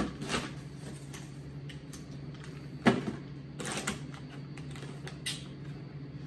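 Plastic bottles and packages being put back into a cardboard box: a few scattered knocks and rustles, the loudest about three seconds in, over a steady low hum.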